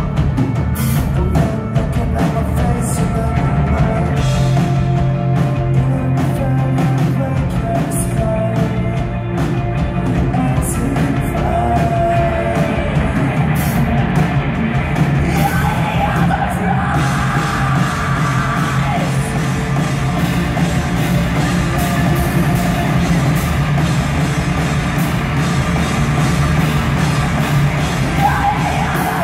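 Heavy rock band playing live: loud, dense music with a drum kit and sung and shouted vocals.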